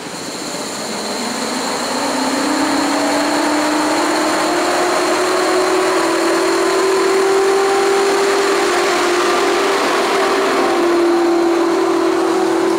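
PKP EP07 electric locomotive pulling passenger coaches past at close range, its traction-motor whine rising slowly in pitch as it picks up speed, over the steady rumble of wheels on the rails. The sound grows louder over the first couple of seconds as the locomotive draws level, then holds as the coaches roll by.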